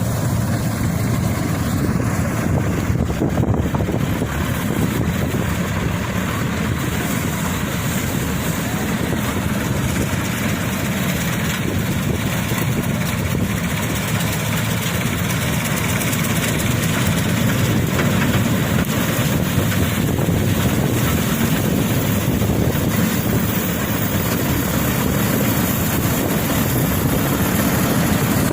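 Wheat combine harvester running steadily: a continuous loud engine and machinery drone that holds even throughout.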